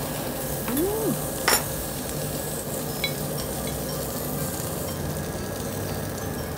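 Thick cuts of pork sizzling steadily on a hot grill grate. A short hummed voice comes in just before a second in, and a sharp metal click from the tongs about a second and a half in.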